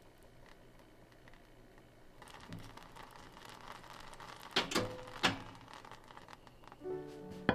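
Quiet kitchen handling noises, rising about two seconds in, with two sharp clicks well over half a second apart midway. Soft background music with plucked notes starts near the end.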